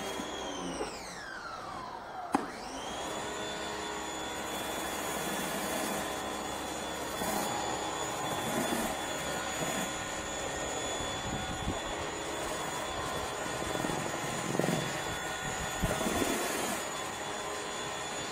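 Small pressure washer running a surface cleaner attachment on concrete: at the start its motor whine falls away as it slows, there is a sharp click about two seconds in, and the whine rises back up and holds steady, over the hiss of water spraying onto the concrete.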